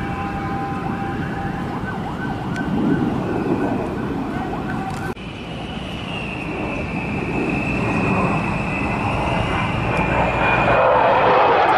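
Sukhoi Su-27/Su-30 fighter's turbofan engines running in flight: a steady high whine over a broad rumble. After a cut about five seconds in, a higher whine sags slightly in pitch and the roar swells near the end as the jet passes low and close.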